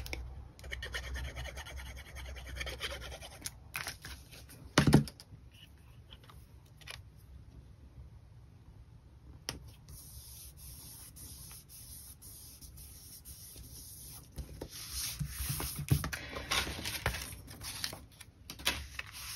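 Paper and cardstock being handled and rubbed on a tabletop as a stamped piece is glued down, with a few light knocks, the clearest about five seconds in; quieter in the middle, busier again near the end.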